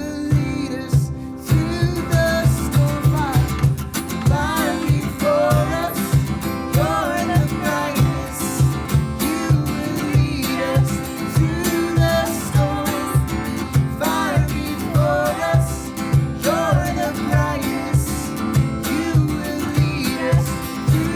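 Song with acoustic guitar over a steady, even bass beat, with singing.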